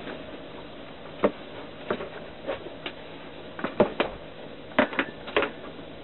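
A kitchen utensil knocking and clinking against cookware in irregular sharp taps, about nine in all, most of them bunched in the second half.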